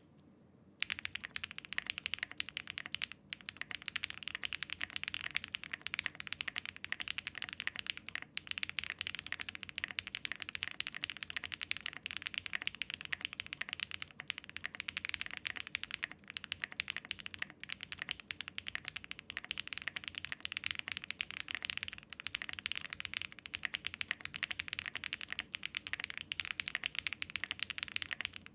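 Typing on a Zoom65 V3 mechanical keyboard built in its silica gel particle mount: a fast, unbroken run of key clacks that starts about a second in.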